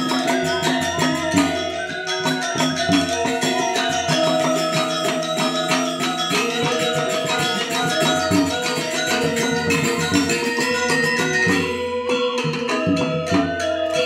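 Balinese gamelan ensemble playing Legong dance accompaniment: bronze metallophones struck in fast, dense patterns over a hand drum.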